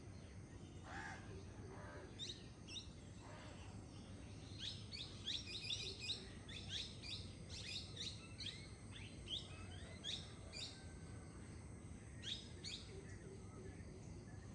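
Wild songbirds chirping: many short, quick, falling high chirps, densest through the middle, with a few more near the end, over a steady low background rush.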